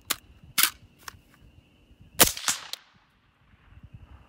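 Suppressed AR-style rifle, fitted with a Dead Air Nomad suppressor, firing a string of shots over about three seconds, the loudest report about two seconds in.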